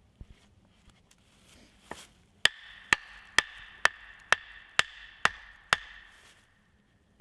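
Wooden mallet driving a wooden brace stake into the ground: after a few light taps come eight sharp knocks, about two a second, each with a short ringing tone.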